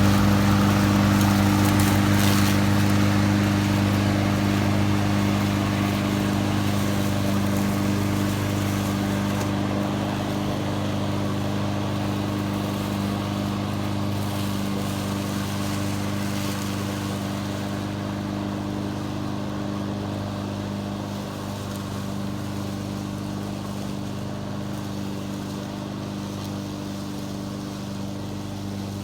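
Honda GCV200 single-cylinder engine of an HRX217 walk-behind lawn mower running at a steady speed, growing steadily fainter.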